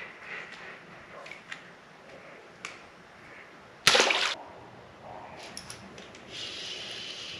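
A hooked crappie splashing at the water's surface as it is pulled up beside the dock: one short, sharp splash about four seconds in.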